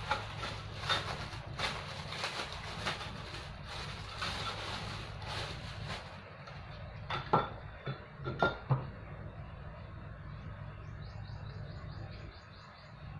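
Plastic bag crinkling and rustling as the mop's handle sections are pulled out of it, then a few sharp clinks of the metal handle tubes knocking together, about seven and eight and a half seconds in.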